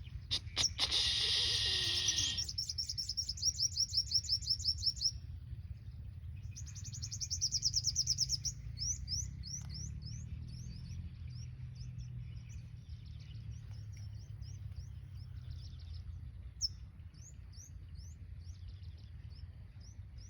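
Sunbirds calling: a burst of high, rapid chattering trills, then a long run of short, sharp high chirps one after another.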